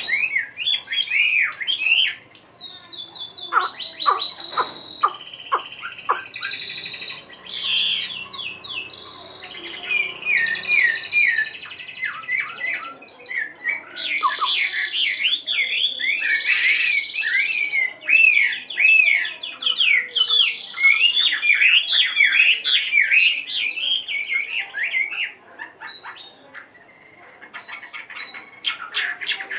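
Chinese hwamei (melodious laughingthrush) singing a long, varied song: fast runs of repeated looping notes mixed with long high whistled notes. The bird is wild-caught and has been caged for one week. There are a few sharp clicks about four seconds in, and the song drops off for a few seconds near the end before starting again.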